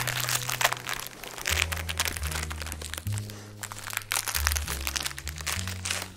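Plastic biscuit packet crinkling and crackling as it is opened and a biscuit is taken out, busiest in the first second. Background music with a low bass line plays throughout.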